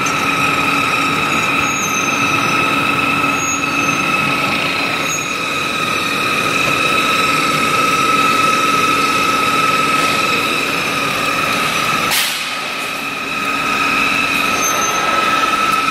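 Bar peeling machine running with a steady high whine over a mechanical drone as the steel bar is fed through the rollers and peeling head. A short sharp click comes about twelve seconds in, and the level dips for about a second before the machine sound returns.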